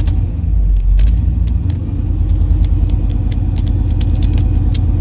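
1988 Chevy C1500 pickup engine idling steadily through a straight-piped exhaust, a low even rumble, with scattered light clicks over it.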